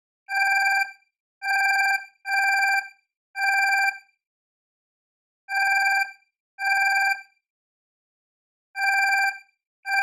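Alarm clock ringing in short bursts of about half a second each, one high ringing tone with a buzzing edge, repeating about eight times at uneven intervals.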